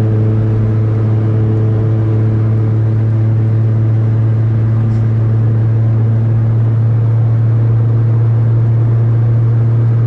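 Loud, steady low drone of a VAZ-2114's loud exhaust heard inside the cabin while the car cruises at an even speed.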